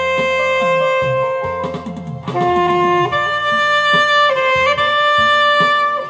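Alto saxophone playing a slow melody in long held notes over a backing accompaniment, with a brief dip in loudness about two seconds in.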